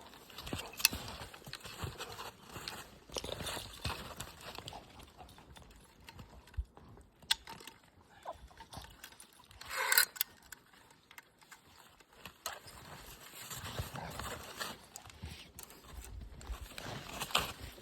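Hand-operated come-along ratchet clicking in irregular spells as it pulls high-tensile support wire tight, with one louder sharp sound about ten seconds in.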